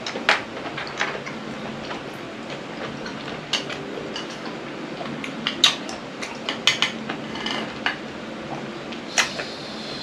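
Eating at a table: scattered sharp clicks and clinks of a spoon against dishes and a serving platter, about a dozen at irregular moments, with chewing between them.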